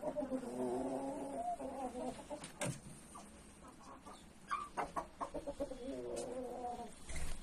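Rooster making two long, low, wavering clucking calls of about two seconds each, one at the start and another about six seconds in, with a few sharp taps in between.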